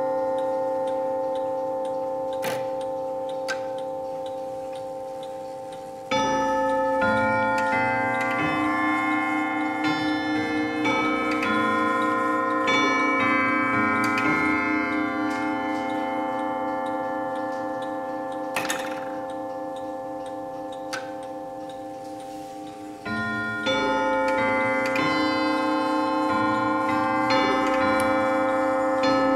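W&H triple-fusee mantel clock chiming on its bells and gongs. Struck notes ring on and fade slowly. One chime run starts about six seconds in and another near the end, with a few light clicks between them.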